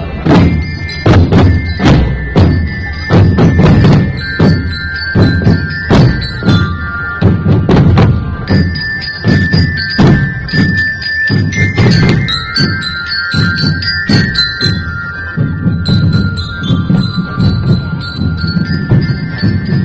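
Music: a melody of bell-like mallet percussion tones over a steady drum beat.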